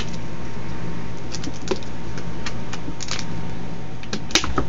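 Scattered light clicks and taps from a cardboard trading-card fat pack box being handled, with a sharper pair of taps near the end, over a steady low hum.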